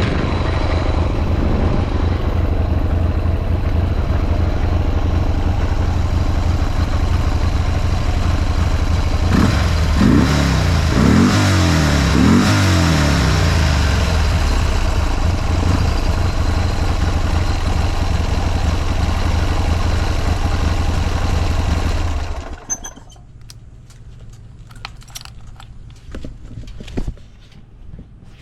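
Buell M2 Cyclone's air-cooled 1200 cc Thunderstorm V-twin idling. It is revved three times about ten seconds in, settles back to idle, and is switched off about 22 seconds in. A few light clicks follow.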